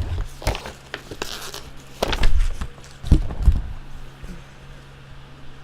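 Trading cards and packs being handled on a table: a few paper rustles, soft knocks and low thumps, over a steady low hum.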